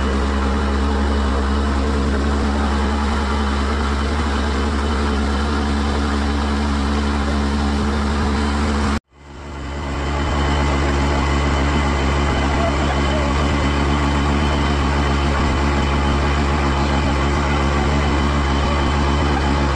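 Passenger motorboat's engine running steadily under way, heard from on board. The sound cuts out abruptly about halfway through and fades back up a moment later.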